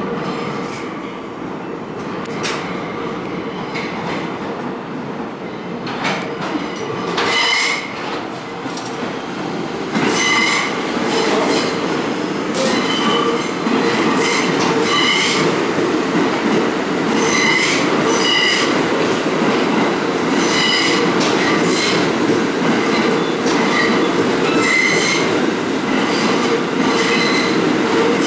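Pullman-Standard R46 subway train pulling into the station: a steady rumble that grows louder about ten seconds in as the cars reach the platform, with repeated clicks and short high squeals from the wheels on the rails.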